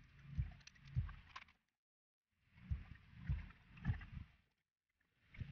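Faint handling noise from work on a scooter's engine casing: soft, irregular knocks and rustles from hands and a small tool. The sound is chopped, cutting to dead silence twice, as in fast-forwarded footage.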